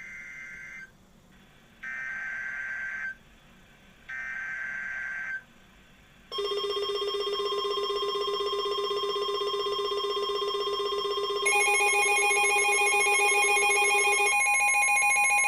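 Emergency Alert System SAME header: three bursts of digital data tones, about a second each, followed by a steady attention signal made of several tones at once. Further tones join about halfway through the attention signal, marking the start of a new alert.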